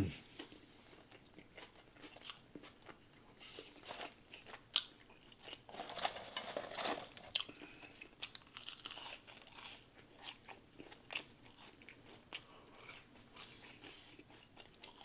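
Close-miked chewing and biting of fast food, with soft crunches and wet mouth clicks at scattered moments, busiest around the middle.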